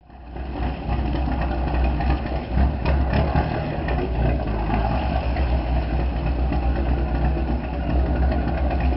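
Diesel engine idling steadily, with a deep rumble.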